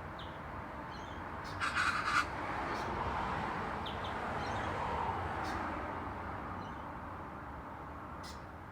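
Steady road-traffic noise, swelling as a vehicle passes and fading again. About two seconds in, a bird gives a short harsh call of a few quick notes, the loudest sound, with a few faint high chirps around it.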